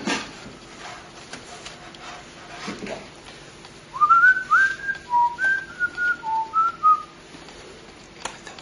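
A person whistling a short tune of about eight clear notes, some sliding up into pitch, for about three seconds starting four seconds in. Faint handling clicks come before it.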